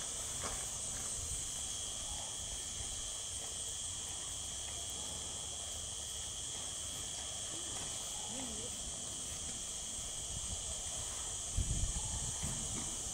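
Steady shrill chorus of insects, a high band with a lower band beneath it, over a low rumble; a few dull thumps near the end.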